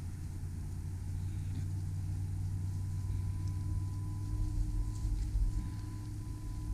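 A steady low engine hum, like a motor idling.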